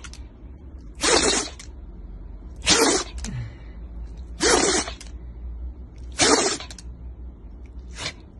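Shiba Inu sneezing over and over in a fit: a sharp sneeze about every second and a half to two seconds, four in a row, then a fainter one near the end.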